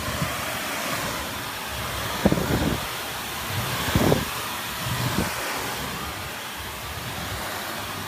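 Shark Lift-Away NV350UKR upright vacuum cleaner running on carpet with a steady rushing noise. Three dull knocks stand out about two, four and five seconds in.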